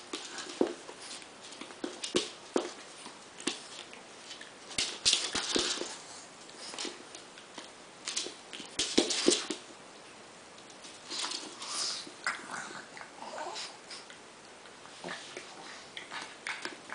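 An adult pug and a pug puppy play-fighting: irregular scuffles, knocks and scrabbling of paws and claws on a wooden floor, mixed with the dogs' own breathy play noises, with the busiest flurries about five and nine seconds in.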